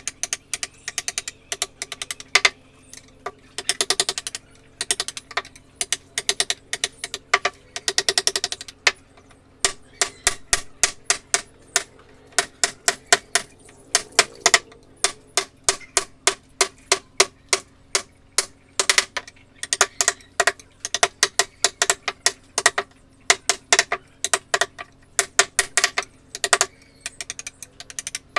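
Quick runs of sharp taps, a mallet striking a wood-carving chisel, with short pauses between the runs.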